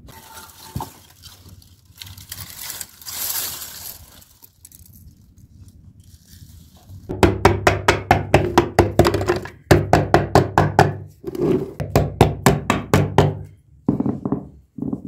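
Knife point stabbing repeatedly into the foil seal of a square metal tin of vegetable ghee: quick sharp knocks, about four or five a second, in runs that start about halfway through. Before that, a softer rustling noise.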